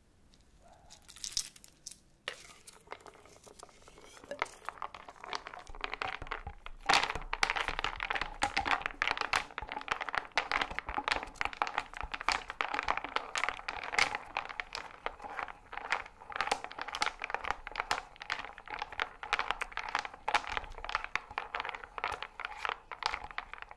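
A glass of chocolate-milk bubble tea being stirred: rapid clinking against the glass over a steady swish of liquid. It starts faintly, builds over the first few seconds and runs on at several clinks a second.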